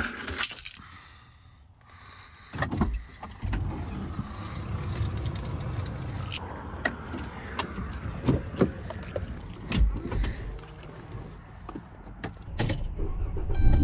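Handling noises inside a minivan: keys and controls being worked, with scattered clicks and thumps over a low steady rumble that starts about three seconds in.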